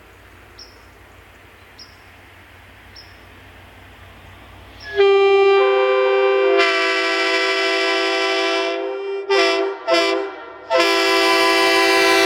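Multi-chime train air horn sounding in long blasts. Its notes come in one after another about five seconds in and build to a loud full chord, which breaks off briefly twice near the end and then sounds again. Before the horn there is a faint steady hum with a light tick a little more than once a second.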